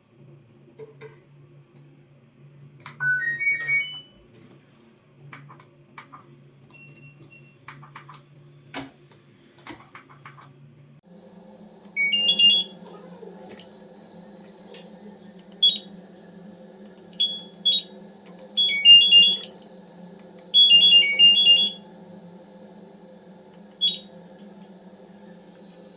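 LG washing machine control panel sounding electronic beeps: a short rising tune of tones, then, after a steady low hum starts about eleven seconds in, repeated clusters of short melodic beeps and chimes.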